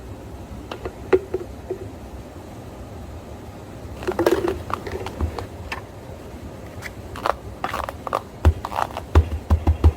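Cafe counter work while making smoothies: cups, containers and utensils knocked and set down on the counter, with a short cluster of clatter about four seconds in and a few low thumps near the end.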